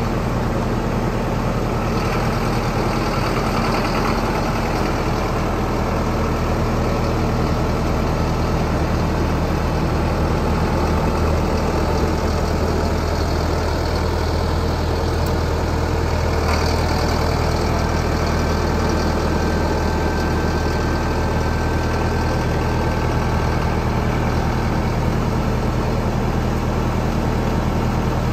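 Sonalika Tiger tractor's diesel engine idling steadily.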